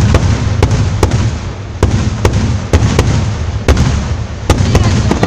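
Fireworks grand finale: a fast run of aerial shell bursts, sharp bangs about every half second over a constant low rumble of booms.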